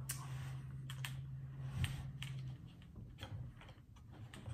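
Irregular small clicks and scrapes of a Takstar SGC-598 shotgun microphone's shoe mount being slid onto a Canon 80D camera's hot shoe and secured. A low steady hum underneath stops a little over halfway through.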